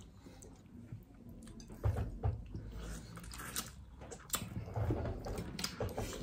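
Close-up eating sounds of people eating boiled shellfish with their hands: chewing, lip smacking and scattered small clicks of shrimp and crab shell being picked apart, with a couple of soft thumps about two seconds in.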